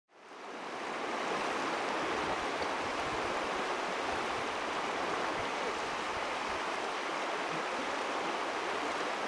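Steady rushing of a shallow river running over a stony bed. It fades in over the first second and then holds level.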